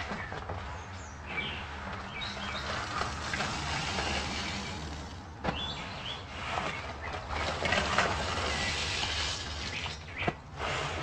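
Soapy sponge full of paste being squeezed and rinsed: wet squishing and crackling of suds. Birds chirp in the background.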